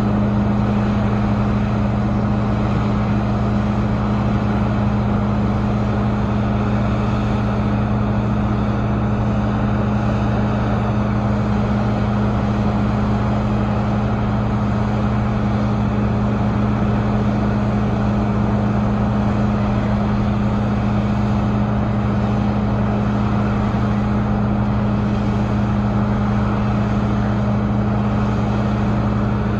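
Diesel engine of a Cat 6015 hydraulic mining excavator running at a steady speed: a constant low drone with no revving or pauses.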